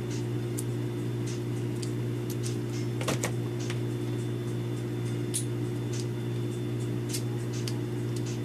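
Small clicks and taps from hands handling metal tools and tiny parts on a workbench, with a cluster of louder knocks about three seconds in, over a steady low hum.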